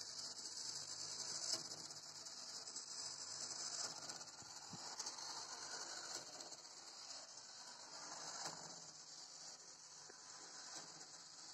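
Quiet, steady high-pitched hiss with a few faint clicks scattered through it.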